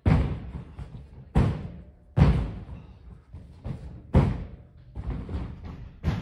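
Loud thuds of bare feet and a body hitting a carpeted gymnastics spring floor as a person runs, takes off and lands flips: five heavy impacts with smaller knocks between, each dying away with a short echo.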